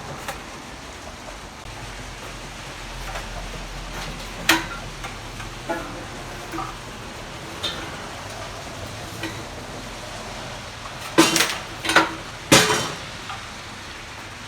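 Metal parts of a propane patio heater being handled during disassembly: scattered light clinks and knocks, with a cluster of louder clanks about eleven to thirteen seconds in, over a steady background hiss.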